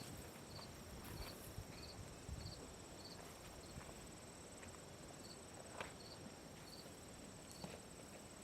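Faint outdoor ambience: insects trill steadily at a high pitch, with a short high chirp repeating about twice a second that pauses midway and then resumes. A few faint clicks are scattered through it.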